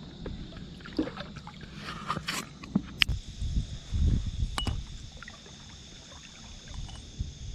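Water splashing as a small bass is released over the side of a kayak, followed by sharp clicks and low knocks of a fishing rod being handled against the plastic hull.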